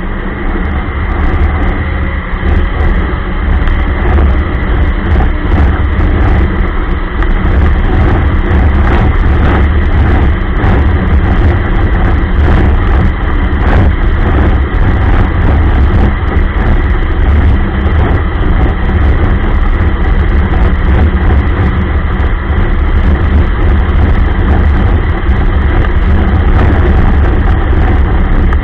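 Ski-Doo Expedition LE snowmobile running at a steady speed, engine and track loud; it picks up over the first couple of seconds and then holds steady, with scattered small ticks over the top.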